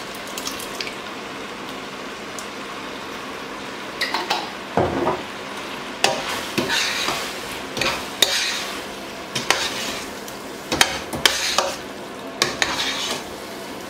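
Chicken and vegetables sizzling steadily in a stainless steel pot, then from about four seconds in a metal spoon stirring through the thick tomato sauce, scraping and clinking against the pot's side again and again.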